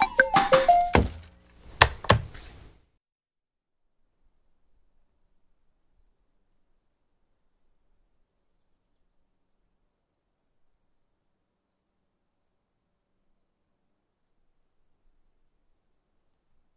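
Playful animation music ends with a falling glide and two heavy thumps about a second apart. Then faint cricket chirping repeats at a steady pace, a night-time ambience.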